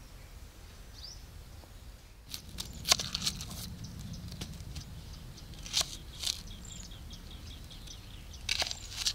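Kitchen knife cutting through red onions onto a wooden stump chopping block: sharp crunching knocks in small clusters, about two to three seconds in, around six seconds, and near the end. Faint bird chirps sound now and then.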